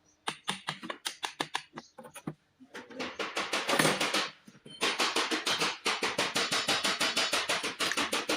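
Rapid series of sharp clicks or knocks, irregular at first, then a steady run of about six a second in the second half.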